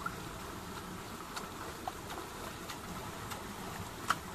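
Shallow water running steadily through a muddy irrigation ditch, with a few sharp knocks and scrapes from a hoe working the ditch bed, the loudest about four seconds in.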